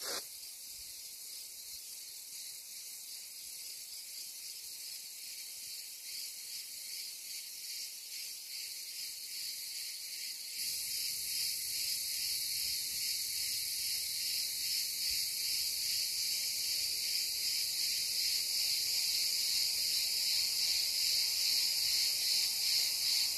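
Steady, high-pitched chorus of insects buzzing in the open air, becoming louder about halfway through.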